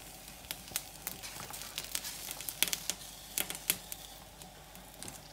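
Aluminium foil crinkling, with irregular light clicks and taps, as roasted tomatillos and chiles are picked off a foil-lined tray and dropped into a plastic container. The taps come thickest a little past the middle.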